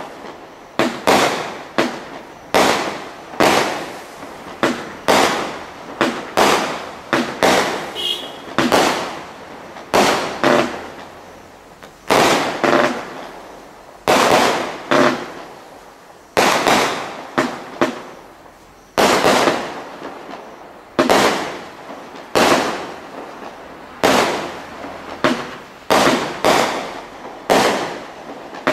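Diamond Fireworks Scarlet Witch 60-shot barrage cake firing: a long series of shots, roughly one a second, each a sharp bang followed by a fading tail as the stars burst.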